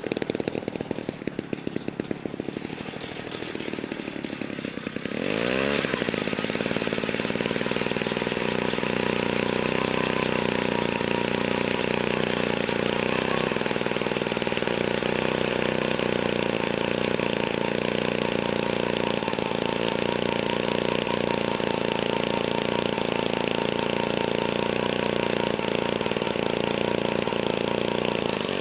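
Small two-stroke engine of a Jiffy gas ice auger running at low speed, then revved up about five seconds in and held steady at full throttle.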